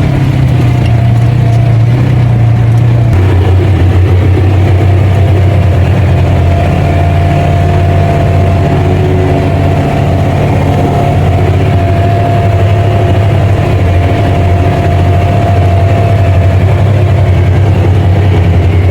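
Car engine running steadily, a loud low hum that steps down to a lower pitch about three seconds in.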